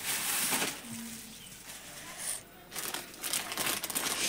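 A thin clear plastic bag rustling and crinkling as it is handled, in several bursts with short pauses between.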